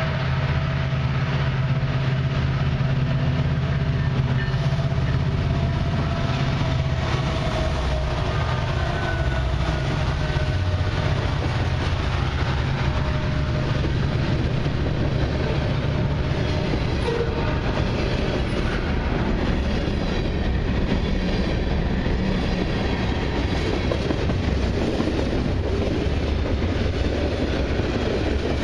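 Long mixed freight train rolling past, its car wheels clattering rhythmically over the rail joints in a steady rumble. A steady low drone runs under it for about the first dozen seconds, then fades out.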